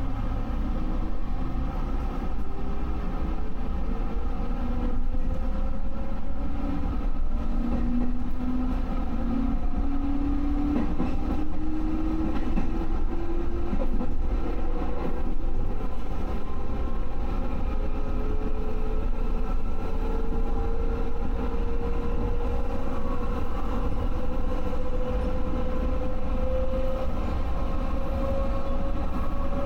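JR West 221 series electric train accelerating. The traction motor whine glides steadily upward in pitch over a constant rumble of wheels on rail.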